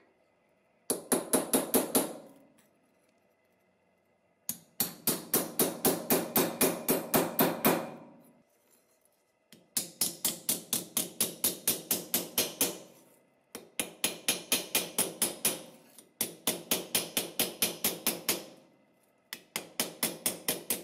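Hammer tapping a thin steel strip on the anvil of a steel bench vise, flattening the bent strip. The blows come in six quick bursts of about six sharp, ringing strikes a second, with short pauses between bursts.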